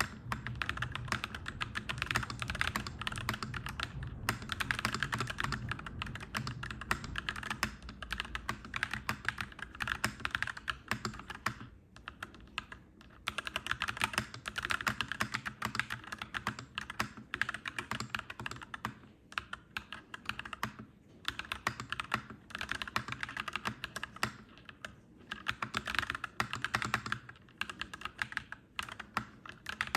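Clacky mechanical keyboard being typed on in quick runs of keystrokes, broken by short pauses every few seconds. A low steady rumble sits underneath and fades after about ten seconds.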